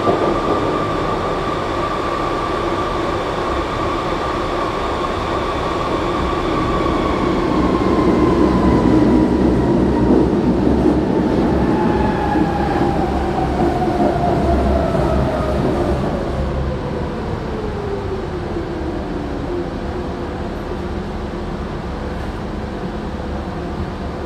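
Berlin U-Bahn G1/1E small-profile train heard from inside the car, running through the tunnel with wheels rumbling on the rails and a steady drive whine. Over the second half the whine falls in pitch as the train brakes into the station.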